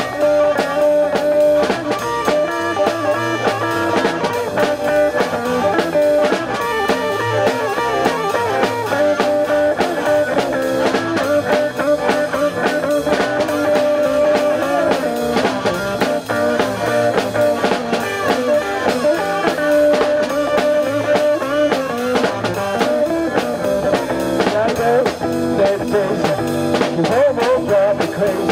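Live blues band playing: harmonica with long held, bending notes over electric guitar, bass guitar and drum kit.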